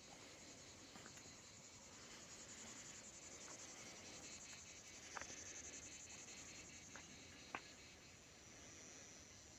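Faint, steady high-pitched insect chirring with a fine pulsing rhythm, and a few light clicks, the sharpest about seven and a half seconds in.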